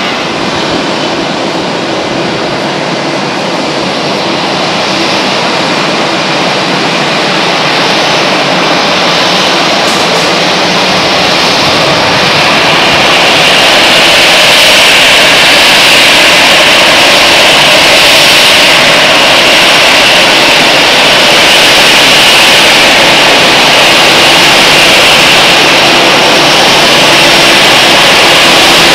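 Twin jet engines of an Airbus A320 at taxi power as the airliner rolls past close by: a steady rushing roar that grows louder about halfway through, with a high whine coming up over it.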